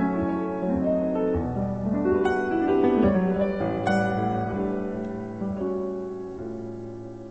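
Background music: solo piano playing a slow, gentle melody with held chords, fading a little near the end.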